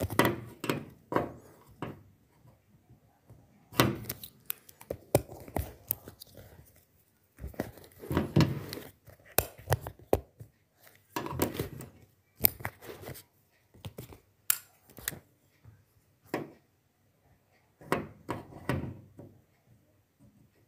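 Small metal construction-kit parts being screwed together and handled: a screwdriver turning small screws into perforated metal strips, with clusters of clicks, scrapes and light clatter every couple of seconds and short pauses between.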